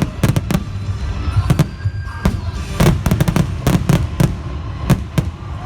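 Fireworks shells bursting in quick, irregular succession, a dozen or more sharp bangs over a few seconds, with music playing underneath.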